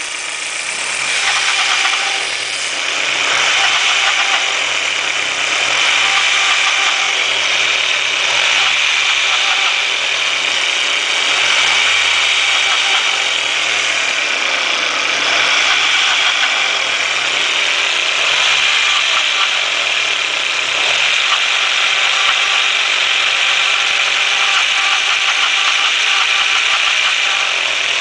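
Turbocharged 1.8T four-cylinder engine running steadily with a metallic rattle.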